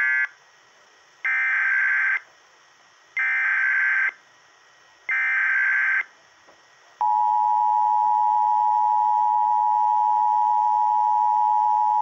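Emergency Alert System broadcast tones: a series of short, screechy digital SAME header bursts, each about a second long and about two seconds apart, then about seven seconds in the steady two-tone EAS attention signal, which signals that a Local Area Emergency alert is about to be read.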